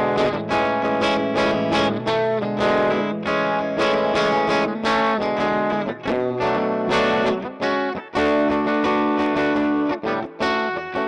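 Greco EG-135 electric guitar played through an amplifier, with chords and notes struck over and over and left ringing, and a few short breaks between phrases.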